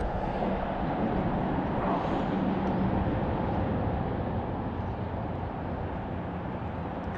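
Steady rushing outdoor noise with a faint low hum underneath, the background sound of a kayak drifting on a river.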